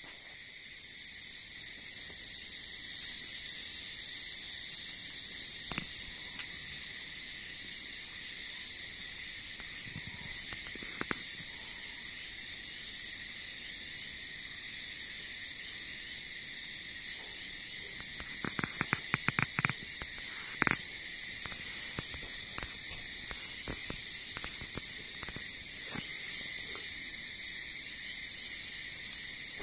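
Night insects chirring steadily outdoors, a continuous high-pitched hiss in several layers. A short run of sharp clicks comes about two-thirds of the way through.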